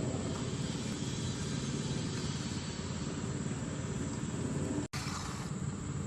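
Steady low mechanical rumble with a fast flutter, broken by a brief dropout about five seconds in.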